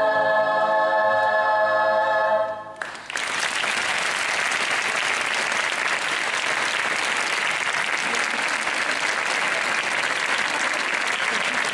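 A youth choir holds a sung chord in several parts, which cuts off about two and a half seconds in; the audience then breaks into steady applause that runs on.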